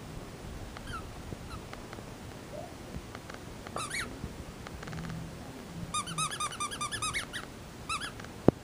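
High-pitched squeaks during puppy play: one squeak about four seconds in, then a quick run of short squeaks, about seven a second, for a second and a half. A single sharp knock near the end.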